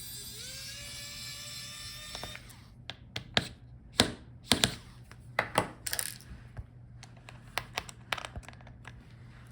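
Small electric screwdriver whirring for about two seconds, its pitch rising slightly as it spins, while backing out laptop hinge screws. Then a run of sharp clicks and taps of small screws and metal tools.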